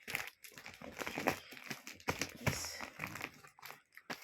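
Parcel packaging being handled and torn open by hand: irregular crinkling and crackling.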